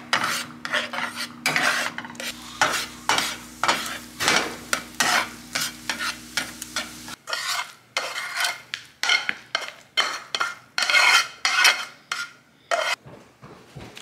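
Spatula stirring and scraping scrambled eggs in a frying pan, the eggs sizzling, in quick repeated strokes over a steady low hum that stops about halfway through. After that the spatula scrapes the cooked eggs out of the pan onto a plate.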